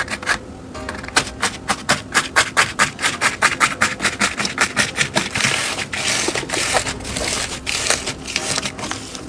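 Crunchy slime being squeezed and pressed, giving a quick run of sharp crackling clicks at about four or five a second. About halfway through these thicken into a denser crackle.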